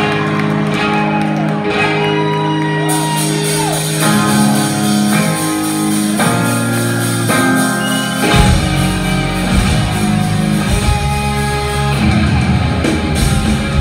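Punk rock band playing live at full volume: electric guitar chords ringing out and changing every second or so, then drums and bass guitar crash in about eight seconds in and the whole band plays on.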